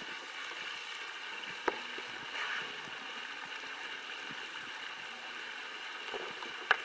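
Quiet shoreline ambience of gentle water lapping on rocks, with a sharp knock about a second and a half in and a louder one near the end.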